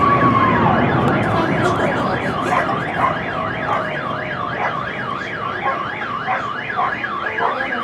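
A car alarm warbling rapidly up and down, about three times a second, over the steady rumble and crackle of a fireworks display. A whistle falls in pitch in the first second.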